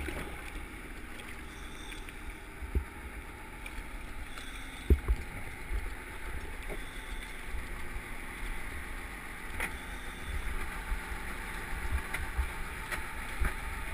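Muffled water noise: a steady hiss over a low, uneven rumble, with a few soft knocks, about three, five and ten seconds in.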